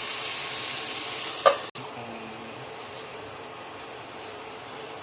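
Onion-tomato masala with spices sizzling in a pan. About a second and a half in there is a single metallic clink as the lid goes on, and after it the sizzle is quieter and muffled.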